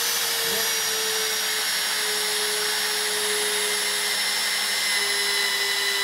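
Machine tool's motor running steadily with a constant whine, cutting a metal blank. Its pitch steps slightly lower twice as the cut loads it.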